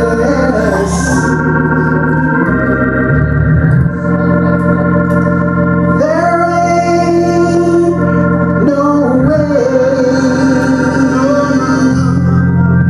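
A man singing with organ accompaniment: sustained organ chords under long, held sung notes that waver and slide between pitches.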